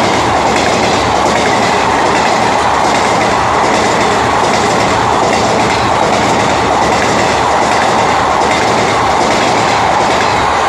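Indian Railways ICF passenger coaches passing at speed, their wheels clattering over the rail joints in a steady loud clickety-clack.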